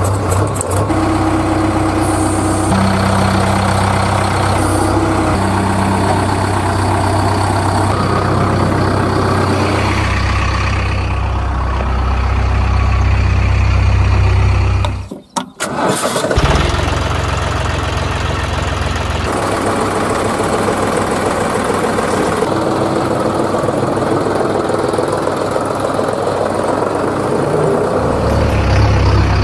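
Heavy vehicle engines running and idling, the sound changing abruptly every few seconds, with a brief drop-out about halfway through.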